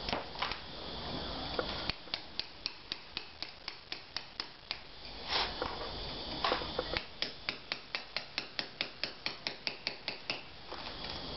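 Small cold chisel scraping and picking soft lime mortar out of a brick joint by hand, in quick, even strokes of about four to five a second, with a pause in the middle and a couple of longer scrapes. The lime mortar is loose and crumbly and comes away easily.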